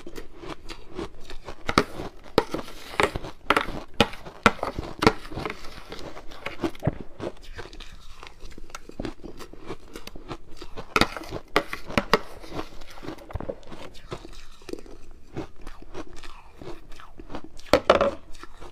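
Ice being bitten and chewed close to the microphone: a dense run of sharp crunches and cracks, heaviest a couple of seconds in, again around the middle, and in a loud burst near the end.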